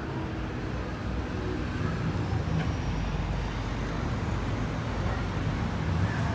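City street traffic: a steady low rumble of cars.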